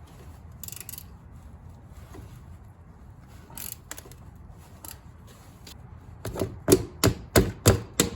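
Socket ratchet clicking on the differential cover bolts: faint scattered clicks at first, then a quick run of loud, sharp clicks, about three a second, over the last two seconds.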